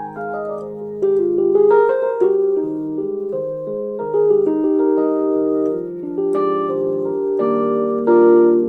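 Roland GO:KEYS 61 keyboard playing a piano voice through its built-in speakers: a melody over sustained chords, with a quick run of notes in the first couple of seconds.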